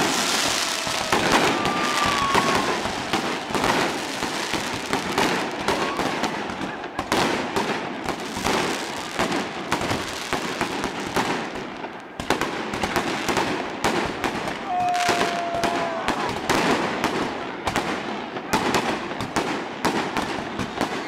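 Dense barrage of fireworks and firecrackers going off continuously: rapid, overlapping bangs and crackles, with a couple of brief whistles.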